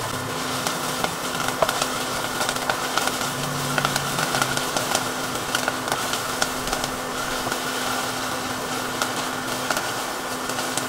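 Sliced garlic, ginger, chives and bell pepper sizzling in hot peanut oil as they are stirred, with many small crackles and pops, over a steady low hum.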